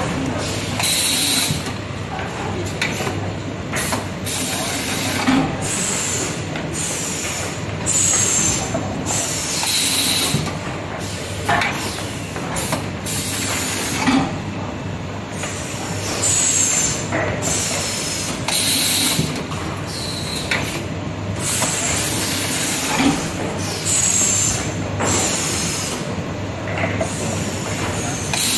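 NZ3260 pneumatic cardboard-box edge curling machine cycling: repeated short hisses of compressed air from its cylinders and valves, some with a brief high falling whistle, over a steady low hum.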